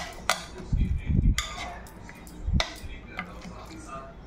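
A metal fork stirring soya chunks through thick marinade in a glass dish, with a few sharp clinks of metal on glass and some dull low knocks about a second in.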